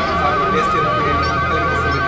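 Music with a high, wavering held note over a steady backing.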